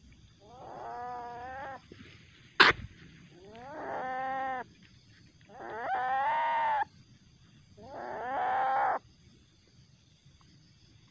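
Juvenile Asian palm civet giving four drawn-out calls, each about a second long and rising in pitch as it starts, a second or two apart, the calls of an agitated, aggressive kit. A single sharp knock comes between the first and second call.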